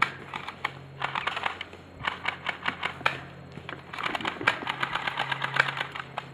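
Camcorder zoom motor running in bursts, a low hum with rapid ticking, picked up by the camera's own microphone as the lens zooms in and out.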